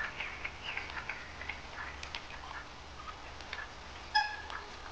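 Grey crowned cranes calling: scattered soft clicks and short chirps, then about four seconds in one loud, short call with several overtones.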